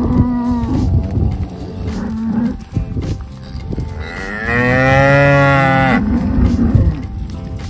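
Black cattle mooing: short moos at the start and about two seconds in, then one long, loud moo between about four and six seconds in that rises and then falls in pitch.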